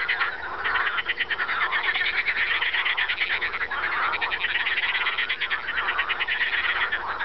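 A chorus of frogs calling in rapid pulsed trains, one laugh-like call standing out over the rest.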